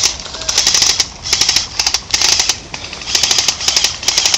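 Airsoft G36 rifle with a drum magazine firing on full auto in about five short bursts of rapid clicking shots.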